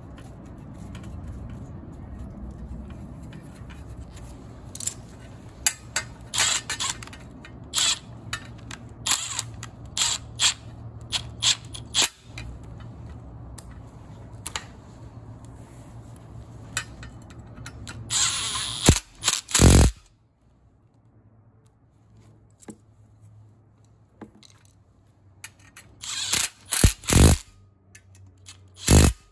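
Metal parts and screws of a furnace inducer motor assembly being handled and fitted to the sheet-metal mounting plate: a long run of small clicks and scrapes, then a few short, loud noisy bursts near the end.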